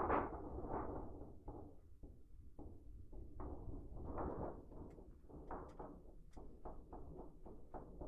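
A hand-held sheet of metal shaken and flexed as a homemade thunder sheet. A loud rumble dies away at the start, then comes a quiet, uneven run of soft wobbles and knocks, a few a second.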